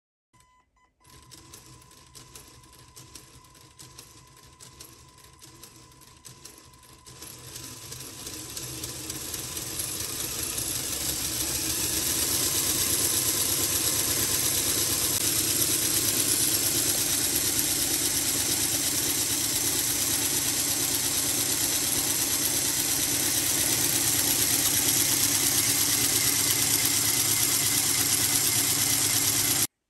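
Powered-up Lego Technic model of the BMW S65B40 V8 with 32 valves and four camshafts, its plastic pistons, valve train and gears clattering as it turns. The sound starts faint, grows louder over several seconds, then holds as a fast, steady mechanical clatter, and cuts off suddenly near the end.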